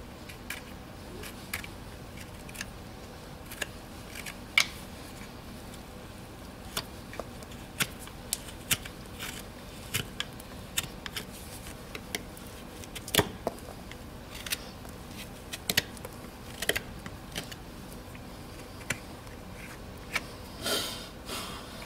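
Hoof knife paring separated, damaged horn from a horse's hoof in short crisp cuts at irregular intervals, with a brief scrape near the end.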